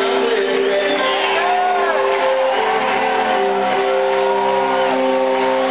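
Live rock band playing, led by electric guitars whose lead lines bend and slide up and down in pitch over sustained held notes.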